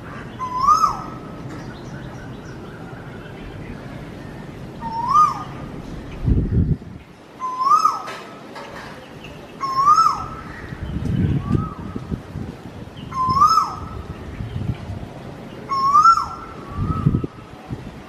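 Asian koel calling: a single note that rises and then drops away, repeated about every two to three seconds. Three short low rumbles are heard in between.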